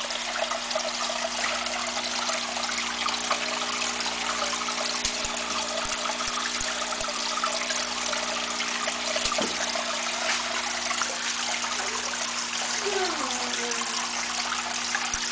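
Water in a reef aquarium trickling and splashing steadily, with a steady low hum underneath.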